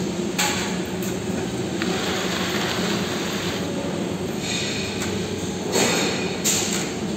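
3D CNC wire bending machine running as it feeds and bends steel rod: a steady motor hum, a rushing hiss for almost two seconds, and short louder bursts of noise, the two loudest near the end.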